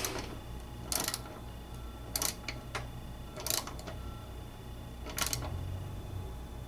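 Socket ratchet wrench clicking in short bursts, about six strokes roughly a second apart, as the mower's blade bolt is tightened.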